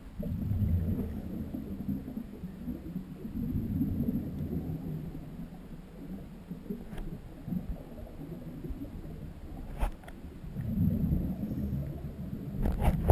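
Muffled underwater rumbling of scuba divers' regulator exhaust bubbles, swelling and fading every few seconds with their breaths, heard through a camera's waterproof housing. A few sharp clicks cut through it, the last near the end.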